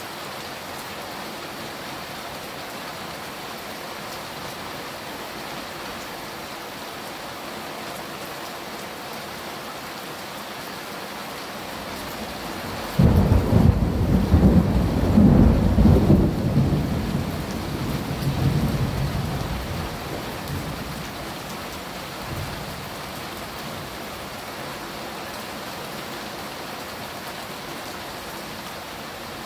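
Steady rain falling, with a thunderclap about halfway through that starts suddenly, stays loud for a few seconds, then rumbles and dies away.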